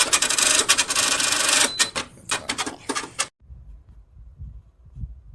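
Dense rustling and scraping full of rapid clicks and crackles, as of something being handled at close range. It cuts off abruptly about three seconds in, leaving only a faint low rumble.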